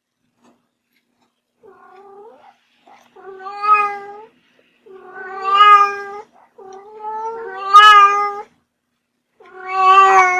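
Domestic cat meowing: after about two seconds of quiet, one faint call followed by four loud, long drawn-out meows with short gaps between them.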